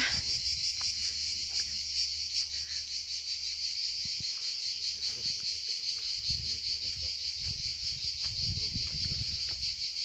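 A steady insect chorus: dense high-pitched chirring with a fine, fast pulsing texture. Low rumbling thuds join in the second half.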